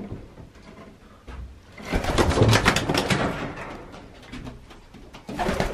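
Racing pigeon flapping its wings in a brief flurry of wingbeats about two seconds in as it flies down from its perch.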